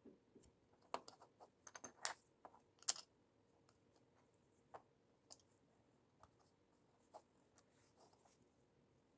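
LEGO bricks clicking as they are picked up, handled and pressed onto a build: a quick flurry of sharp little plastic clicks in the first three seconds, then a few scattered clicks.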